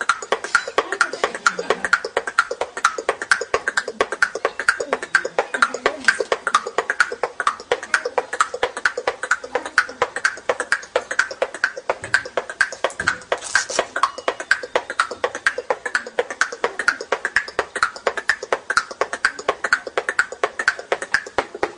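Teeth-clicking beatbox by a child: a fast, steady rhythm of sharp clicks made with the teeth, kept up without a break.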